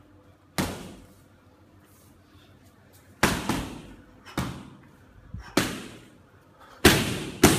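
Gloved strikes smacking into Thai pads during Muay Thai pad work: about seven sharp slaps, each with a short room echo. There is one near the start, a quick pair about three seconds in, then more every second or so, the loudest near the end.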